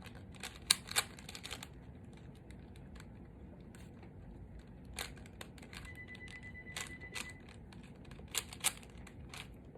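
Plastic speed cube being turned fast in the hands, its layers snapping round in irregular clicks and clacks, loudest about a second in and in short runs later on.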